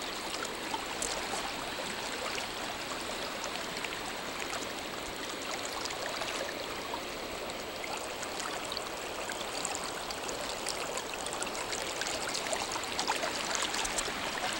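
Creek water rushing steadily over a shallow riffle, with a few light ticks near the end.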